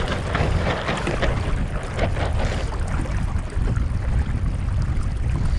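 Water rushing and splashing along the hull of a Streaker sailing dinghy under way, with heavy wind buffeting on the microphone. The splashing is busiest in the first couple of seconds.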